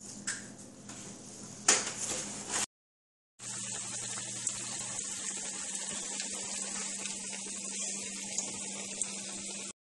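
Rings of dough deep-frying in hot oil in a pan, a steady sizzle with fine crackling. Before it, a sharp knock about two seconds in.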